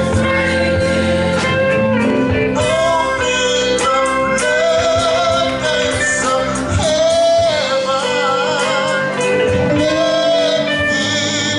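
Live gospel music: a church choir singing over a band with electric guitars.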